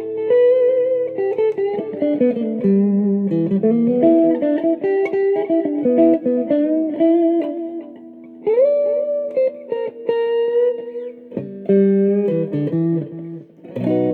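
1970s Japanese-made Cortley copy of a Fender Stratocaster, an electric guitar played clean with no gain or pedals: picked single-note lines and double stops, with a slide up about eight seconds in and a brief break near the end.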